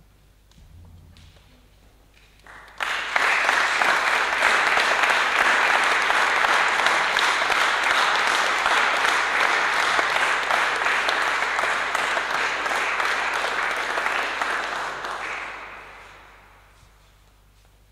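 Audience applauding: dense clapping that starts suddenly about three seconds in, holds steady, and dies away over the last few seconds.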